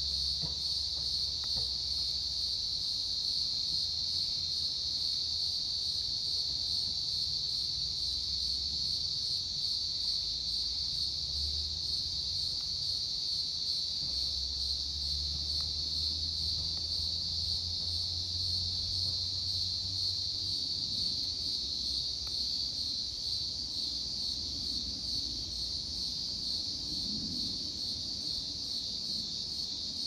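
Insects singing, a steady high-pitched continuous trill that holds unbroken throughout, with a faint low rumble coming and going underneath.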